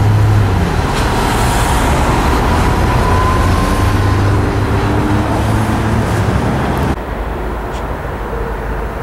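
Road traffic noise: a passing car's engine hum fades out in the first moment, leaving a steady rumble and hiss of traffic with a faint engine hum in the middle. The sound drops abruptly and turns duller about seven seconds in.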